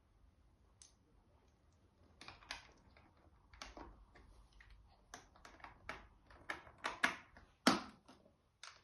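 Plastic Lego pieces clicking and clattering as they are handled and pressed together. The irregular sharp clicks grow busier and louder from about two seconds in.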